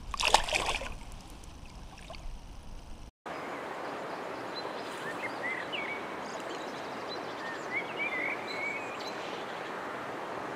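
A pike splashing in the water as it is let go, loudest in the first second. After that comes a steady rushing background, with small birds chirping now and then.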